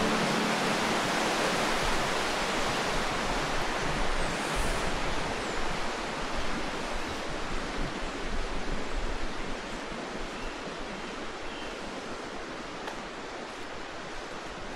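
A steady rushing noise with no distinct tones or knocks, slowly growing fainter.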